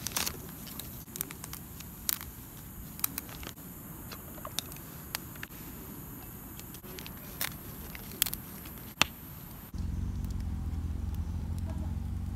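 Paper drip-coffee bags and their packet crinkling and being torn open, with scattered small crackles and clicks. About ten seconds in, this gives way abruptly to a steady low hum.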